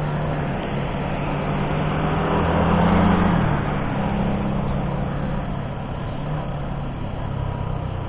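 Yamaha Sniper 155's single-cylinder engine running under way in city traffic, mixed with wind and road noise. The sound swells about three seconds in as a bus passes close alongside, then the engine note drops a little and eases.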